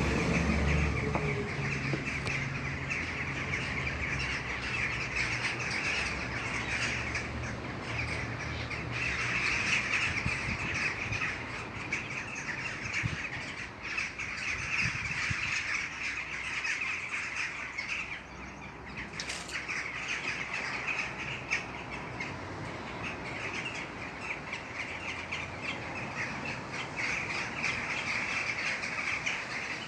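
A flock of birds calling at once, a steady dense chorus of many overlapping calls.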